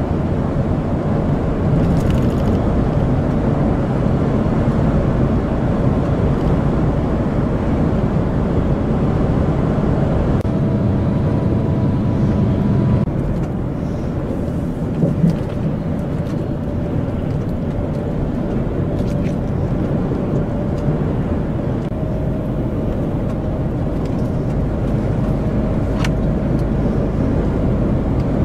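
Steady drone of a lorry's engine and tyres heard inside the cab at motorway speed, with a faint whine joining about ten seconds in. The level dips slightly a little before halfway, with a short knock soon after.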